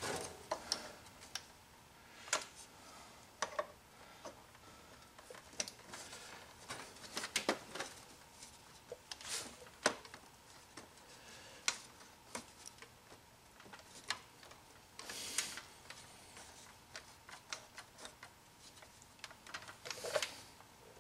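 Faint, irregular clicks and taps of plastic and metal parts being handled and pushed into place inside an opened Hypertherm Powermax 30 plasma cutter, with a brief rustle about fifteen seconds in.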